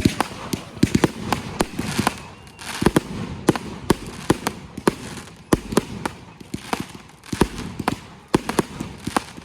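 Consumer firework cakes going off: a rapid, irregular string of sharp bangs and crackles, several a second.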